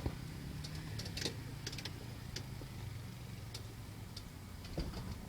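Scattered light clicks and ticks over a low, steady hum.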